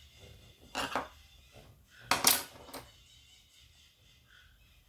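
Small metal screwdriver bits clinking as they are picked through and handled, with a short clink about a second in and a louder cluster of clinks a little after two seconds.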